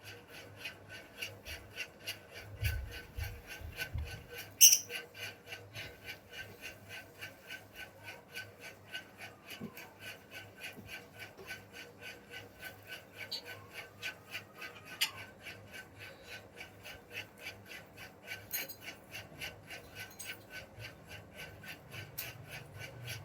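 Lovebirds feeding on seed: a steady rasping scrape about three times a second from beaks working the food, with one sharp click about four and a half seconds in.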